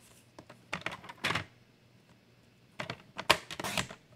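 Sliding paper trimmer cutting through two thin sheets of masking paper, with the paper handled on the trimmer's base. Two bursts of clicks and scratchy rustling come about a second in and again about three seconds in, with one sharp click in the second burst.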